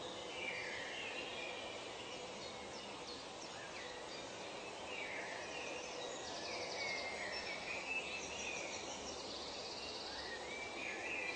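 Forest ambience: a steady background hiss with birds calling and chirping throughout. High, rapid trills come in about six seconds in and again near the end.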